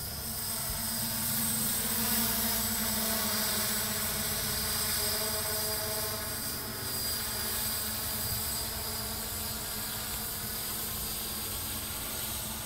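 Multirotor drone flying overhead, its propellers humming with a slowly wavering pitch. The hum swells about a second or two in, then eases off gradually as the drone moves away.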